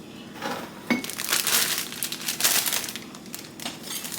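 Plastic crinkling and rustling in repeated short bursts, with a light clink just before a second in.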